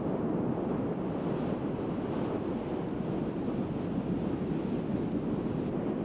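Steady rush of surf on the shore, with wind on the microphone.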